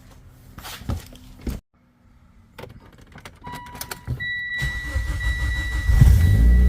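Mitsubishi Lancer Ralliart's turbocharged four-cylinder engine cranking and starting about four and a half seconds in, running loudly near the end. Before that come a few clicks and knocks and a steady high electronic tone.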